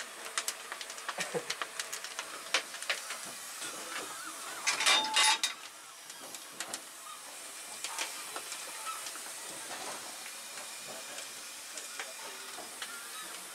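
Steam locomotive cab sounds: a steady hiss of steam with scattered sharp clicks, and a louder burst of hissing lasting under a second about five seconds in.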